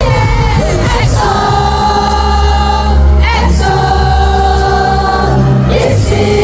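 Loud pop music through a concert sound system: a voice sings long held notes over a heavy bass line, the notes changing about every two seconds.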